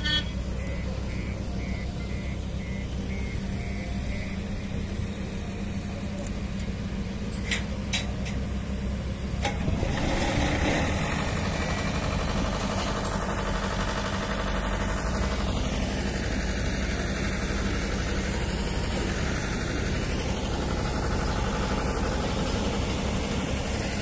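Heavy diesel engines running steadily, a deep constant hum, with a few sharp knocks around eight to nine seconds in and the noise growing louder and fuller from about ten seconds on. A row of faint short beeps sounds in the first few seconds.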